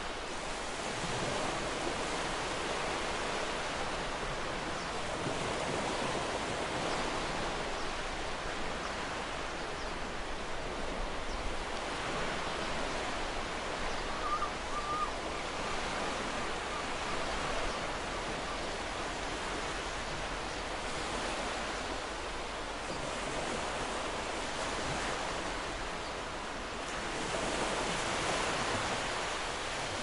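Ocean surf washing onto a sandy beach: a steady hiss of breaking waves that slowly swells and eases, rising again near the end.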